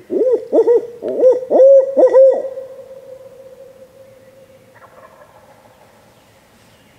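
Owl hooting: a loud, rhythmic series of about seven or eight rising-and-falling hoots over two seconds, the last trailing off into a faint held note.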